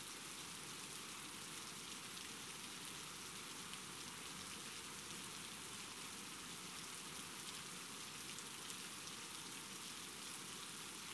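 Steady rain: a dense, even patter of drops at one unchanging level.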